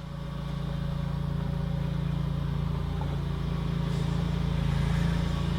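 Engine idling steadily with a low, even drone that swells in at the start and then holds.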